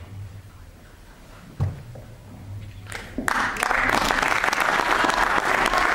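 A single dull thump about one and a half seconds in, then an audience bursts into applause a little after three seconds and keeps clapping steadily.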